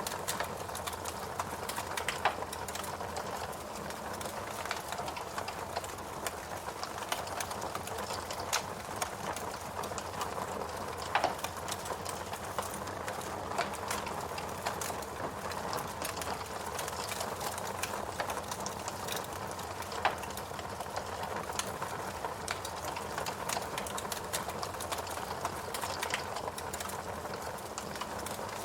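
Wood fire burning in a fireplace: a steady hiss of burning logs with frequent small crackles and a few louder, sharper pops.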